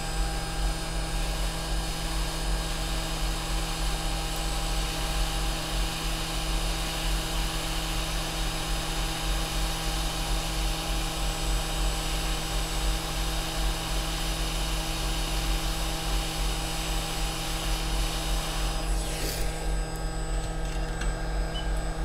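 Hot air rework station blowing a steady stream of hot air over the solder joints of a replacement logic-board connector, reflowing them. A steady hum sits under it, and the airflow cuts off near the end.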